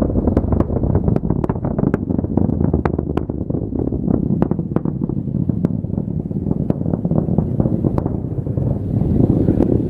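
Falcon 9 rocket's nine first-stage Merlin engines during ascent, heard at the ground as a loud, deep rumble laced with sharp crackles. The crackling thins out over the last few seconds.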